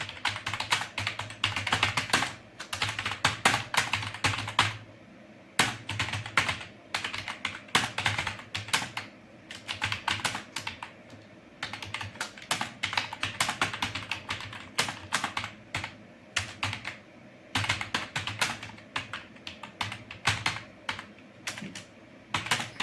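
Computer keyboard typed in quick, uneven bursts of keystrokes with brief pauses between runs: a typing test.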